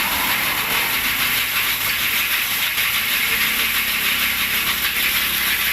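Machine for making bamboo bird-cage spokes running, a steady hissing noise that holds even throughout.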